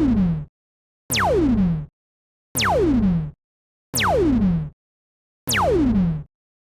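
Synthesized laser-gun sound effect: a sharp zap whose pitch drops steeply from very high to low, repeated five times about a second and a half apart.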